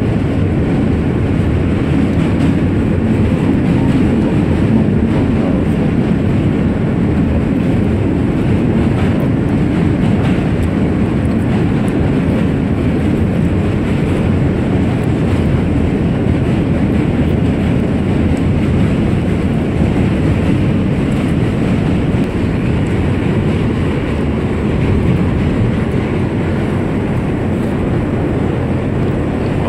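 New York City subway car on the Q line running, heard from inside the car: a loud, steady rumble of wheels on the rails that does not let up.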